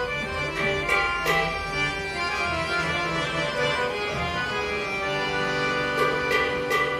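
Harmonium playing a sustained melodic line, its reeds sounding steady held notes, with a few sharp drum and cymbal strokes about a second in and again near the end.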